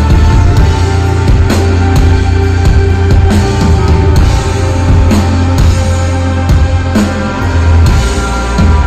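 Live instrumental rock band playing loudly: drum kit hits and cymbal crashes over a heavy, sustained electric bass and guitars.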